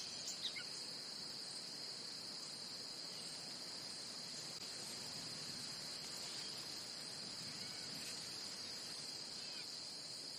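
Faint steady chorus of crickets, with a few short faint chirps near the end.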